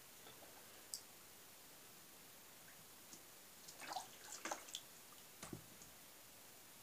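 A cat's paw dabbing and splashing in a plastic tub of water holding live fish: a single click, then a quick run of small splashes and drips about four seconds in, and a dull knock soon after.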